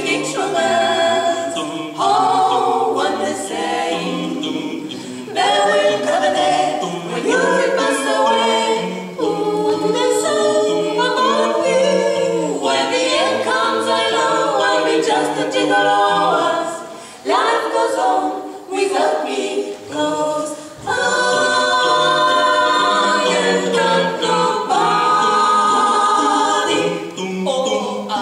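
Mixed a cappella vocal quartet of two men and two women singing together in harmony, voices only with no instruments.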